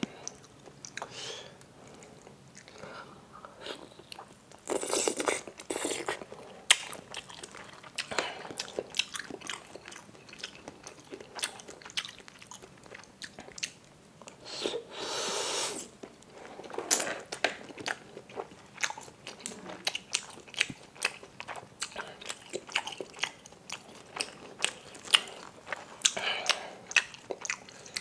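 Close-miked eating of bakso meatballs in chilli sauce: biting and chewing, with a fork and knife clicking and scraping on the plate as the meatballs are cut. Two longer, louder mouth sounds come about five and fifteen seconds in.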